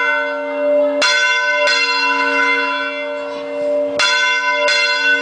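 Large church bell swung full circle on a wooden headstock. Its clapper strikes in pairs, two strokes about two-thirds of a second apart and the pairs about three seconds apart, and each stroke hums on in a long ring.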